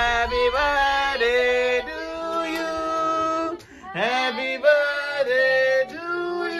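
Singing with long held notes, in two phrases, the second starting about four seconds in.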